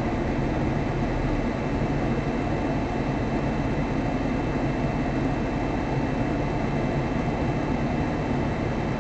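Steady hum of a car's engine idling, heard from inside the stopped car's cabin, with no distinct events.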